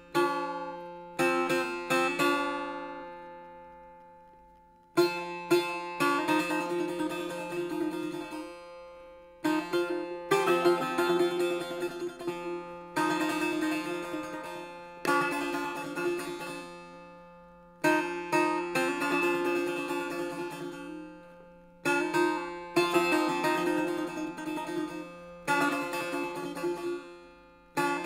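Solo setar playing the free-rhythm dar amad of Abu Ata: short runs of plucked notes over ringing strings, each run left to ring and die away before the next begins.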